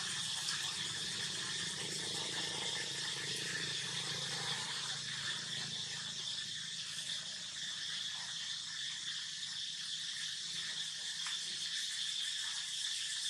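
Steady chorus of calling insects, a continuous high-pitched drone that never lets up. A low rumble underneath fades out about halfway through.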